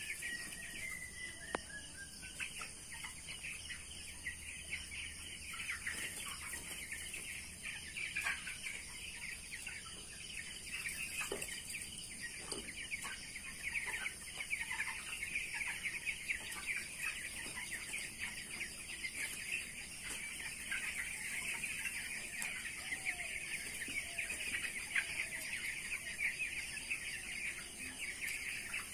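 A flock of young broiler chicks peeping, many short high chirps overlapping into a continuous chorus, with a few longer falling calls standing out now and then.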